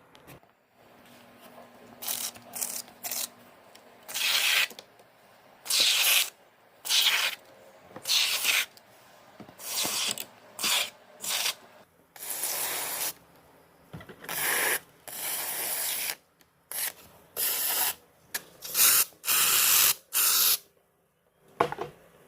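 Cleaning spray hissing onto an air conditioner in a long series of short bursts, each lasting up to about a second, with brief pauses between them.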